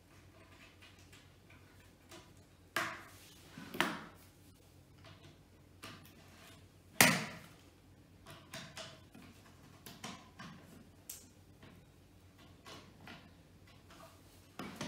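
Scattered knocks and light clicks of a hand screwdriver driving screws into a chipboard drawer panel, with one sharp knock about seven seconds in.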